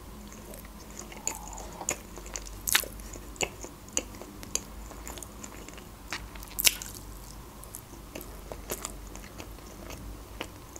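Close-up eating sounds of a person chewing boiled egg: soft wet mouth smacks and clicks, with two sharper ones about three and seven seconds in.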